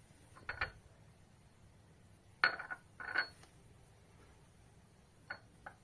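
A small drinking glass clinking against a hard tile floor: three pairs of short sharp knocks, each with a brief high ring. The loudest pair comes about two and a half to three seconds in.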